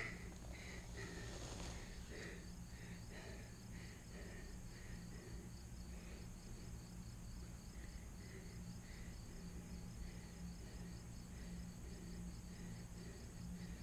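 Faint crickets chirping in the grass in a steady, rapid pulse, over a low steady hum.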